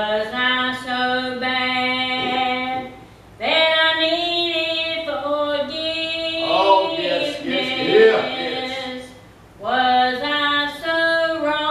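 Three women singing a gospel song together, holding long notes, with short pauses between phrases about three seconds and nine seconds in.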